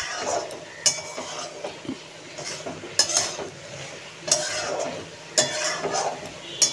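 A metal spatula stirring a thick potato and kohlrabi curry in a metal pot, scraping and knocking against the pot several times, about once a second, over a steady sizzle from the hot pan.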